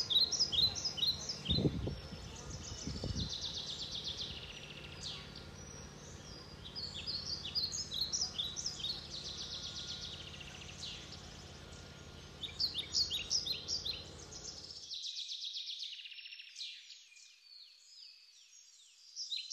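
Songbirds chirping and singing in quick repeated phrases, over a faint steady low hum that cuts off suddenly about fifteen seconds in. There is a brief low rumble about two seconds in.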